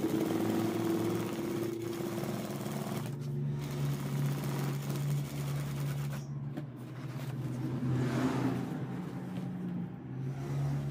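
Industrial single-needle lockstitch sewing machine stitching along a pattern line in fabric, running in short runs and stopping briefly a few times as the cloth is turned.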